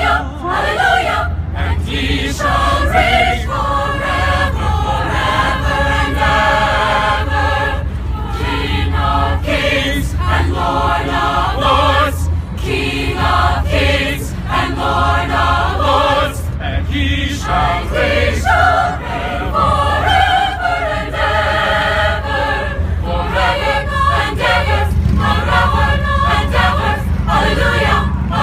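Mixed choir of men's and women's voices singing an "Alleluia" in full harmony, phrase after phrase with short breaks between, over a steady low rumble.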